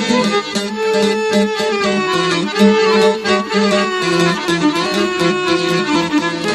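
Instrumental break in Bosnian izvorna folk music, with a violin playing the melody over a steady rhythmic accompaniment and no singing.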